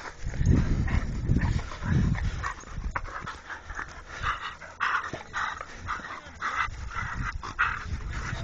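Staffordshire bull terriers making dog noises at play: a few deep sounds in the first two seconds, then short breathy sounds two or three a second.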